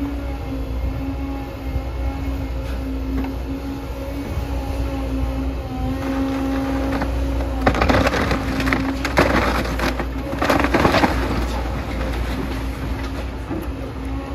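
A Caterpillar 325F hydraulic excavator running with a steady hum, and from about eight to eleven seconds in, wood cracking and splintering and debris crashing down as its bucket tears apart a house's wooden roof and framing.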